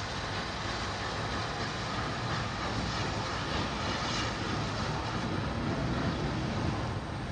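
Steady hiss and rumble from a steam tank locomotive standing in steam, with no distinct beats or whistles.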